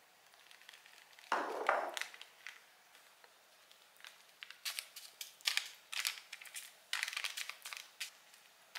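Pastry brush dabbing olive oil onto soft tofu cubes on baking parchment, the paper quietly rustling and crinkling under it. One rustle comes about a second and a half in, then a run of short brush strokes from about four and a half seconds on.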